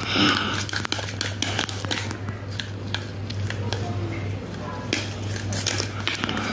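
Kitten scrambling on a cloth mat over a tiled floor: scattered light clicks and rustling, over a steady low hum.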